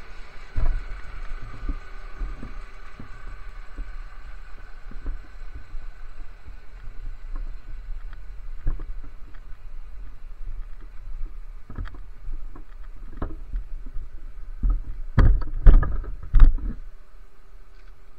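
Irregular low thumps and rumble from wind and handling on an outdoor camera microphone, with a cluster of louder thumps near the end.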